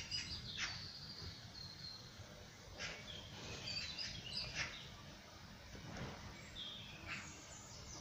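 Small songbirds chirping in short, high calls and quick notes, scattered irregularly, over a steady low background rumble.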